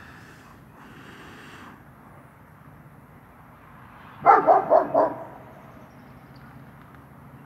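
Working-line German shepherd barking four times in quick succession about four seconds in, guarding the yard.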